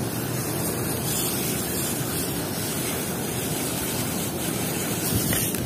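Steady rush of spraying water washing dirt off toy cars, with a small knock near the end.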